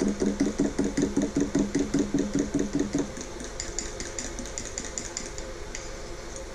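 Spoon stirring coconut milk powder and water in a ceramic mug, rapid rhythmic strokes about five a second, stopping about three seconds in; lighter clicking follows.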